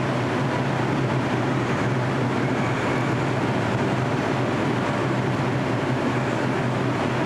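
R142 subway train standing at the platform with its doors open: a steady low hum over an even rushing noise, with no motor whine or wheel noise.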